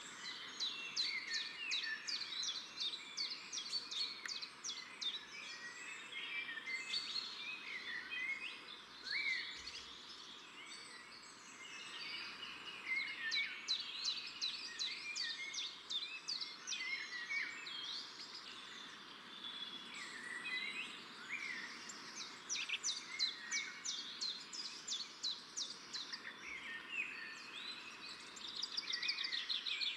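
A flock of small birds chirping and twittering together, with rapid runs of high chirps coming in waves over a faint steady hiss.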